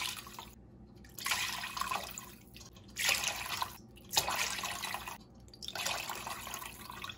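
Chicken broth pouring from a cloth jelly bag into a pot of broth: the stream splashes into the liquid in surges about every second and a half, with a thinner dribble in between.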